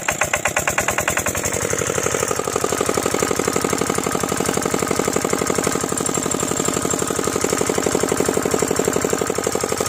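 Kirloskar single-cylinder diesel pump engine running with a fast, even firing beat. It picks up speed in the first couple of seconds as the lever is worked, then runs steadily.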